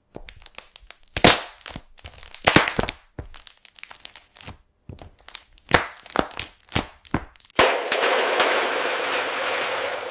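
Crushing of hard-shelled chocolate candies: irregular sharp cracks and snaps, the loudest about a second and two and a half seconds in. About seven and a half seconds in, they give way to a dense, continuous crunching crackle.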